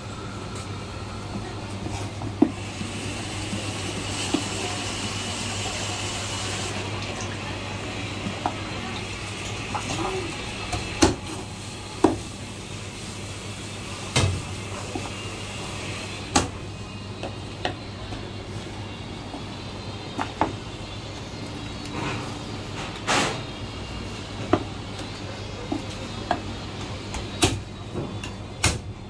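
Chinese cleaver chopping marinated goose on a plastic chopping board: single sharp chops at irregular intervals, mostly a second or more apart, over a steady low hum. A hiss like running water fills a few seconds near the start.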